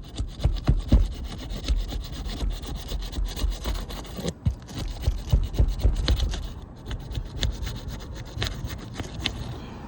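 Crowbar prying and scraping under a Tamko three-tab asphalt shingle to break its sealant bond: an irregular rough scraping with frequent clicks and knocks, which stops near the end.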